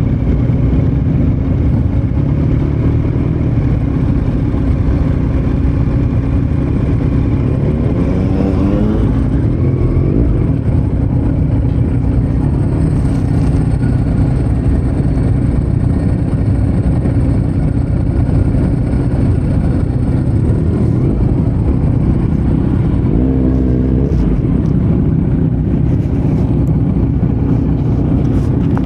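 2018 Kawasaki Z900's inline-four engine running under way through an open Yoshimura muffler and Delkevic headers with no dB killer. The engine note holds steady, with a brief sweep in pitch about eight seconds in and again about twenty-three seconds in.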